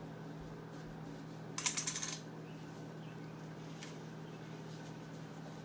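A brief, quick clatter of small hard clicks lasting about half a second, a second and a half in, over a steady low hum.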